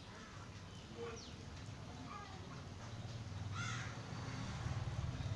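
Birds calling: a few short falling chirps, then one louder, harsh call about three and a half seconds in, over a steady low hum.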